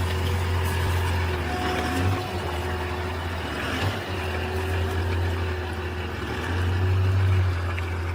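Large vehicle engine running steadily, a deep low drone with fainter steady tones above it, growing a little louder late on.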